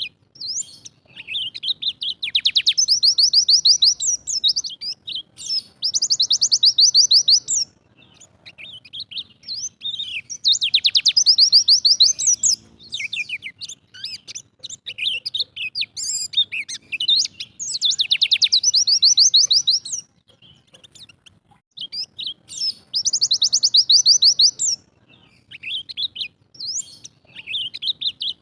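Bali yellow-breasted white-eye (pleci dakun) singing: high, very fast trill bursts about two seconds long, repeated every few seconds, with quick chirping notes between them.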